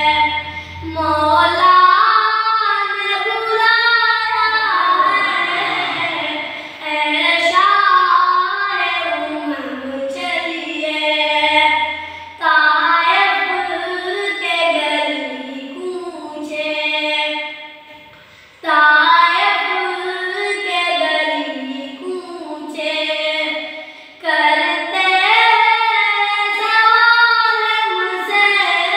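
A high voice singing a naat, an Urdu devotional song in praise of the Prophet, in long phrases with the pitch sliding between notes and short breaks between lines.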